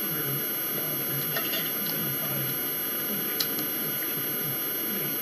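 Steady electrical hum and hiss with a few faint, brief clicks.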